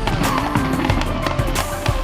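Fireworks and firecrackers popping and crackling irregularly, with background music running underneath.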